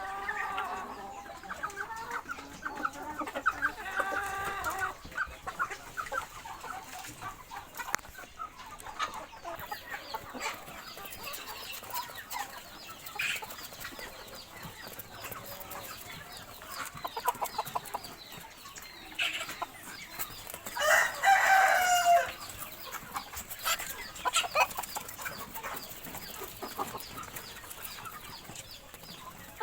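A flock of chickens clucking and calling in short repeated calls, busiest at the start. About two-thirds of the way through comes one louder, longer call lasting a second or so.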